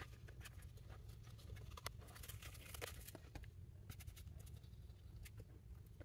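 Faint handling noise: scattered light clicks and rustles as a nylon toolkit pouch and a plastic knife sheath are handled, over a low steady hum.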